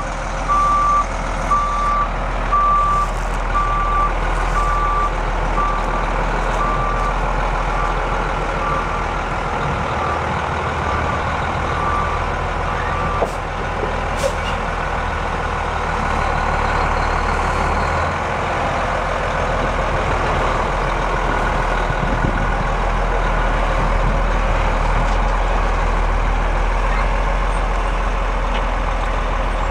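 Reversing alarm on a 1994 Peterbilt 375 dump truck beeping steadily and growing fainter as the truck backs away, over its running Cummins M11 diesel engine. The beeping stops about halfway through, and the diesel keeps running.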